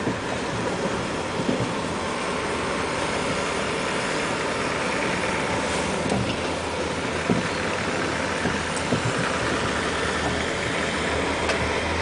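Crane truck's diesel engine running steadily at low speed, heard from inside the cab, with a few light knocks.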